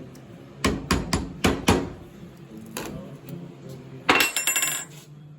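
Hammer striking steel, five quick blows in about a second, followed near the end by a short metallic clatter with a ringing tone. These are the sounds of a stuck tractor axle hub being worked off its spindle.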